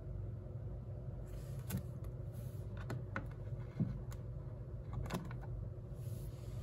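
A few light clicks and taps as a trading card in a rigid plastic holder is handled and stood on a wooden shelf, over a steady low room hum.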